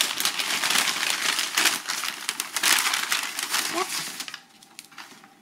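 Paper pastry bag crinkling and rustling as it is handled, for about four seconds; then the rustling stops.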